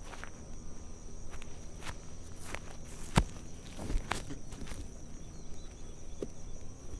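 Footsteps walking on grass: irregular swishing, crunching steps, with one sharper, louder step about three seconds in.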